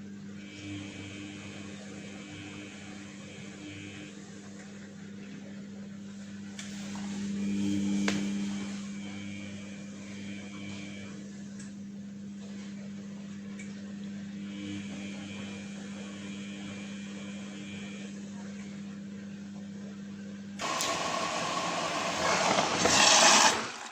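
Samsung WF1600WCV front-loading washing machine in its wash phase: a steady motor hum, with a higher whine that comes and goes every few seconds as the drum turns and pauses. About 21 seconds in, a loud rush of water begins.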